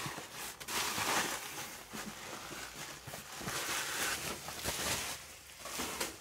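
Cardboard box and plastic packing material rustling as the box is handled and set down, with a few light knocks.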